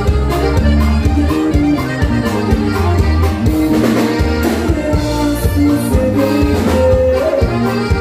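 Norteño dance music from a band with accordion, playing a steady, bouncing beat over a repeating bass line.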